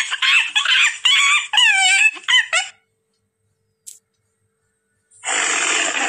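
Chimpanzee calling: a fast series of high, screeching hoots that rise and fall for the first three seconds or so. A short click comes about four seconds in. About five seconds in, a tiger's rough growling roar starts.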